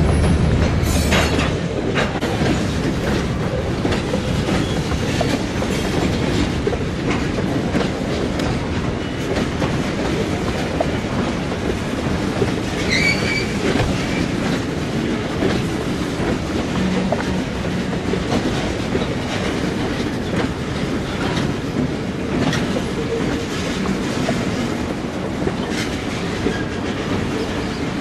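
Freight train cars rolling by with an even rumble and wheels clicking over the rail joints. A brief, high wheel squeal comes about halfway through.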